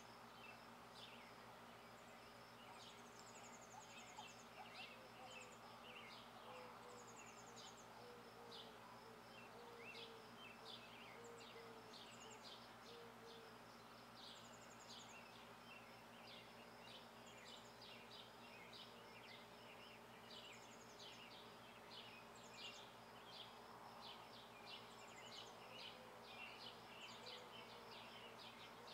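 Faint background ambience: a steady low hum under many quick high chirps repeating irregularly throughout, with an occasional short high trill.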